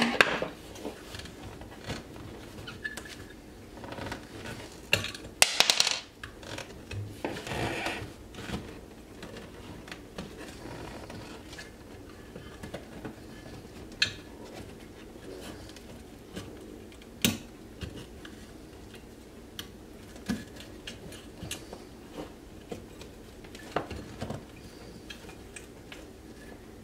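Metal electrical box being pried and wrenched loose from a drywall opening: irregular metal clinks, scrapes and knocks, busiest in the first eight seconds, then only an occasional sharp click.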